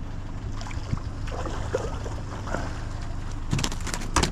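Wind buffeting the microphone on a small boat, a steady low rumble, with a few sharp knocks and clicks near the end.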